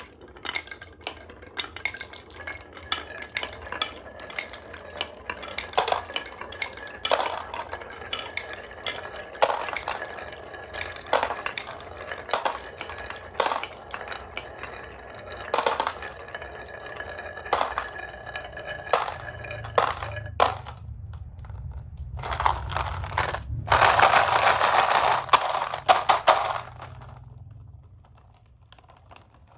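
Marbles rolling and clacking down a wooden HABA marble run, with many sharp clicks and knocks as they drop and hit the track. Near the end, a dense, loud rattle of many marbles tumbling together for a few seconds, then it stops.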